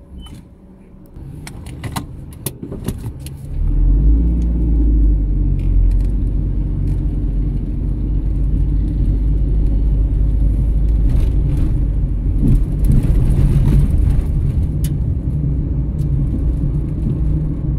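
Car interior: a few sharp clicks or rattles in the first seconds, then about three and a half seconds in a loud low rumble of engine and road noise sets in as the car moves off, and it runs on steadily.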